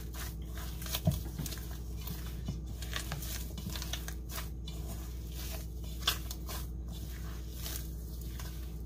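Hands kneading a stiff dough in a stainless steel bowl: irregular soft squishing and pressing, with a sharper knock about a second in and another about six seconds in, over a steady low hum.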